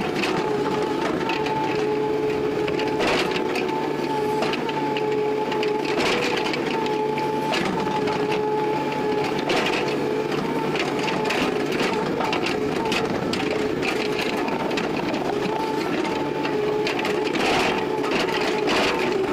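Excavator running with a steady, slightly wavering whine from the engine and hydraulics, over a low hum, with scattered knocks and clanks.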